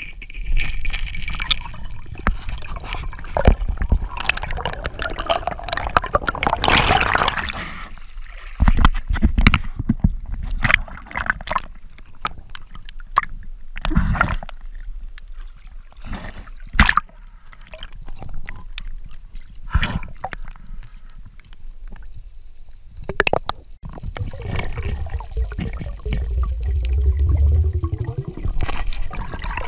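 Water gurgling and sloshing around an underwater camera, with a low rumble and scattered sharp clicks and knocks.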